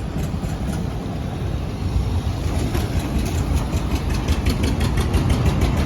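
Motorcycle engine idling with a steady low rumble that grows louder about two seconds in, joined midway by a fast, even ticking.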